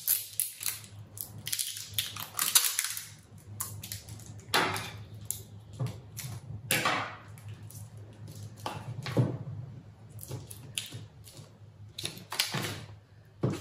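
Sellotape being pulled off its roll and wrapped around a bundle of pleated paper and gold foil, with a snip of scissors cutting the tape. The sound is a series of irregular short rasps, crackles and clicks from handling on a table.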